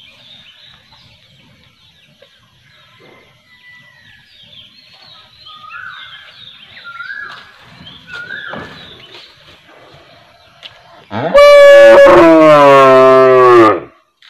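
A cow mooing once, loud and long, about eleven seconds in, dropping in pitch toward the end of the call. Before it, faint bird chirps.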